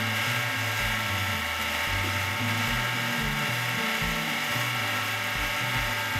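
Mini lathe running steadily at speed, its motor and drive giving an even whine, while a wooden dowel with polishing compound is pressed against the spinning aluminum bar. Background music plays underneath.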